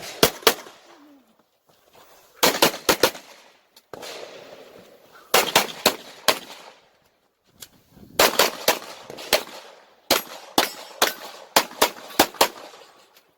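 Glock pistol fired in fast strings of shots, several shots a second, in about five bursts separated by one- to two-second pauses while the shooter moves, transitions between targets and reloads on a USPSA stage.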